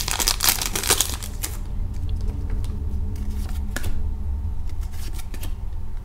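A trading-card pack wrapper crinkling as the cards are pulled out of it, then a few soft clicks as the cards are slid one behind another, over a steady low hum.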